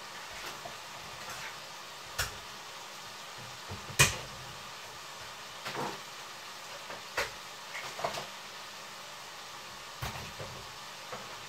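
Minced meat sizzling faintly in a frying pan, with scattered sharp clicks and knocks of kitchen things being handled every second or two, the loudest about four seconds in.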